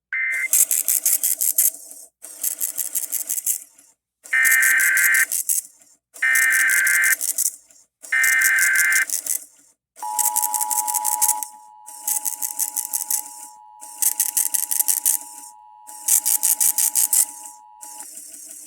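Emergency Alert System test tones. A short data burst comes at the start, then three warbling SAME header data bursts, each about a second long and a second apart. From about ten seconds in, the steady two-tone EAS attention signal holds for about eight seconds and then cuts off. Under it all, a rhythmic buzzing pattern pulses about every two seconds.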